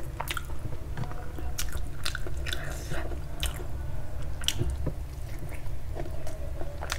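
Close-miked chewing of a mouthful of food: wet, squishy mouth sounds with irregular smacks and clicks, over a steady low hum.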